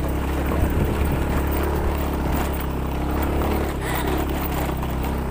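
A vehicle's engine running steadily on the road, a constant low hum with road rumble.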